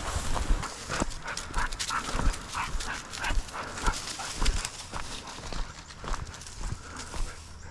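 German shorthaired pointer panting in a quick, even rhythm of about three breaths a second, fading past the middle, with footsteps in dry cover.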